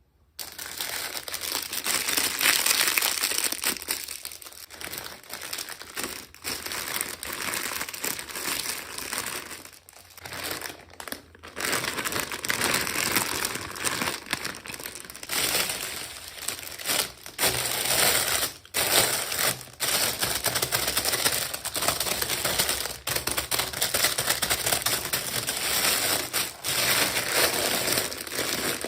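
Plastic packaging crinkling and crackling in hand-handled bursts, with a few short pauses, as a miniature toy is unboxed.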